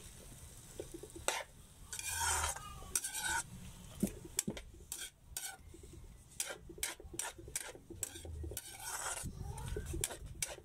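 Spatula scraping and knocking irregularly against a wok as chopped Chinese cabbage is stir-fried, the cabbage sizzling in the oil.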